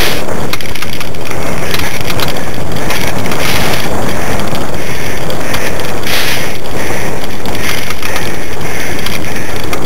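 Loud, steady rumbling and rattling of a dog-drawn dryland rig rolling fast over rough grass, with wind buffeting the microphone.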